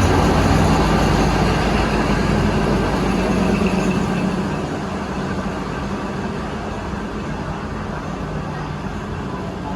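Alsthom diesel-electric locomotive and its train running by, a steady low engine drone with rolling rail noise. It fades gradually over the second half.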